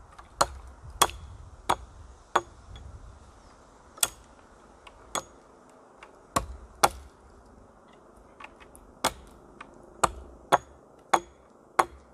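Hatchet chopping into the base of an upright wooden pole: about a dozen sharp strikes at an uneven pace, with a longer pause about two-thirds of the way in.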